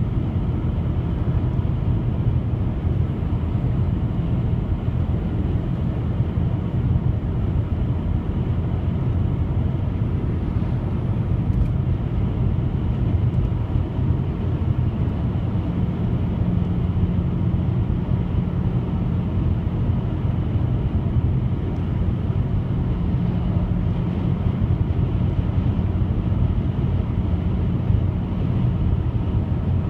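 A steady low droning rumble with a few held humming tones in it, the 'strange trumpet sound' of the kind reported as a mysterious sky noise. One humming tone grows stronger about halfway through.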